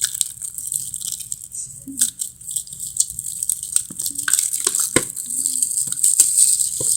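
A boxed card-game set being opened and handled: steady rustling and scraping of the box and its packaging, with scattered sharp clicks and taps, the loudest knock about five seconds in.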